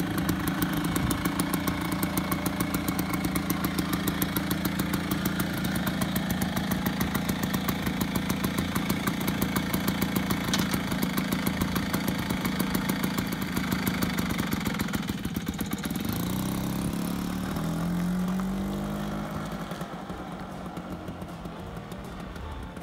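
Vespa PX 150 scooter's two-stroke single-cylinder engine idling with a steady, even putter. About fifteen seconds in it revs as the scooter pulls away, rising in pitch, then fades as it moves off.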